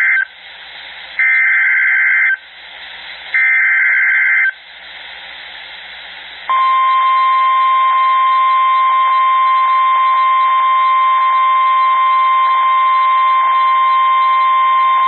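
NOAA Weather Radio emergency alert signal. First come the SAME digital header bursts, warbling two-tone data about a second long, twice in full, with radio hiss between them. Then about six and a half seconds in, the steady 1050 Hz warning alarm tone starts and holds for roughly nine seconds; it announces a severe thunderstorm warning and sets off weather radios in the warned area.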